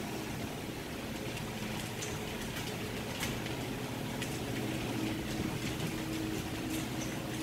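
Two dogs eating dry kibble from a steel bowl: scattered short clicks and crunches of the pieces against the metal, over a steady mechanical hum.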